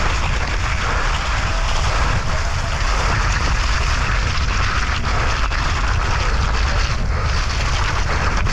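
Heavy wind noise on the microphone: a loud, steady rushing with a strong low rumble.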